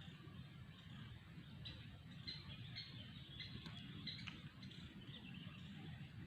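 Faint outdoor ambience: a scatter of short, high bird chirps over a low steady rumble.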